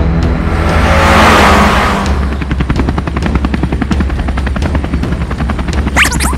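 Cartoon helicopter rotor sound effect: a fast, even chopping that starts about two seconds in, after a whoosh that swells and fades. High, squeaky cartoon vocal glides come in near the end.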